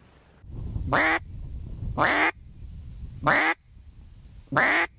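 Mallard hen duck call blown by mouth, giving four single quacks evenly spaced about a second and a quarter apart. These are the basic quack, imitating a hen's contented quack.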